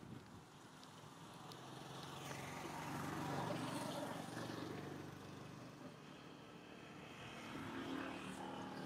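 A motor engine's hum that swells to a peak a few seconds in, fades, then rises again near the end, as of a vehicle passing.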